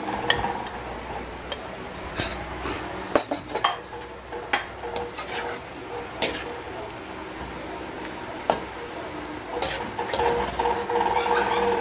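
Spatula stirring shredded chicken into a thick sauce in a metal pan, with irregular clinks and scrapes against the pan a second or so apart.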